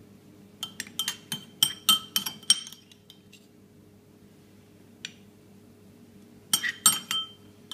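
Metal spoon clinking against a china plate and bowl while salad is served: a quick run of ringing clinks for about two seconds, a single tick a few seconds later, then a second short run near the end.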